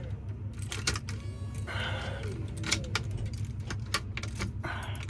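A string of small metallic clicks and a keyring jangling as the ignition key and lock-cylinder parts are handled in the steering column, over a low steady hum.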